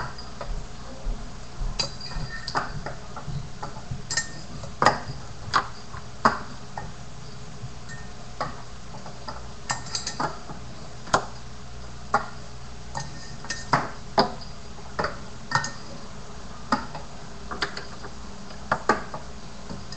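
Toy finger BMX knocked and scraped on a wooden desk edge during grind practice: irregular sharp clicks and taps, one or two a second, as the little bike lands and slides.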